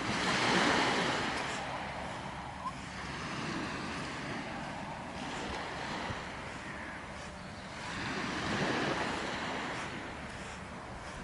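Small waves breaking and washing up a sandy shore: a steady wash that swells twice, once just after the start and again about eight seconds in.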